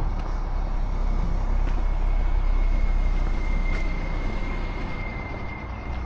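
A motor vehicle passing on a nearby road: engine and tyre rumble swelling to a peak a couple of seconds in, then fading away. A thin, steady high whine is held through the second half.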